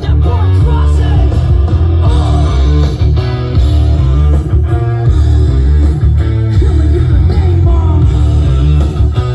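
Loud rock music with guitar and heavy bass, played back through a sound system as a demo.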